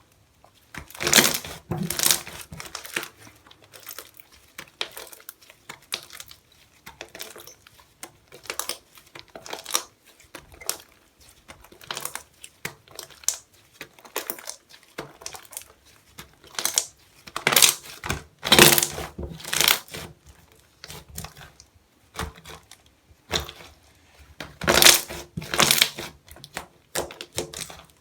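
Slime being squished, pressed and poked by hand, making irregular sticky clicks, crackles and pops, with louder bunches about a second in, about two-thirds of the way through and near the end.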